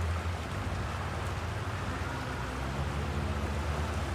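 Polaris UTV engine running at a steady low rumble while water splashes and rushes steadily around it during a river crossing.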